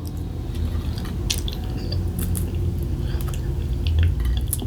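A person chewing food close to the microphone, with small wet mouth clicks and smacks, over a steady low hum.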